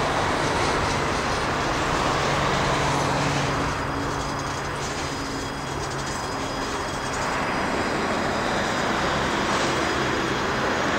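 The tail end of a freight train of coal hopper cars passing, its steel wheels rolling on the rails in a steady rumble. The sound dips slightly as the last car goes by and then carries on as the train moves away.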